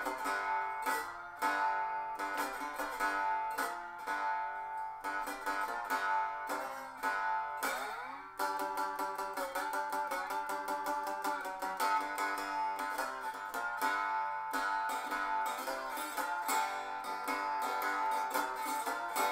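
Four-string cigar box guitar with a metal dog-dish resonator, tuned to open G and played unamplified with a slide: picked and strummed chords across the four strings, with a slide up the neck heard as a rising glide about eight seconds in.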